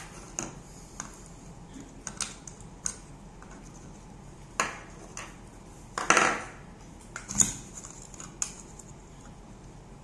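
Hard plastic fountain pipe and nozzle pieces clicking and knocking as they are fitted together and set down on a wooden table. The clicks are scattered, with a louder rattle about six seconds in.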